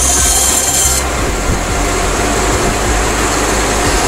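Small benchtop band saw running, its blade cutting through a turned wooden chess-piece blank with a high hiss that stops abruptly about a second in; the saw then runs on with no wood in the blade.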